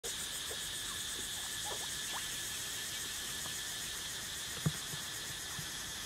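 Steady high-pitched chorus of insects droning, with a few short rising chirps in the first couple of seconds and a single dull thump a little before the end.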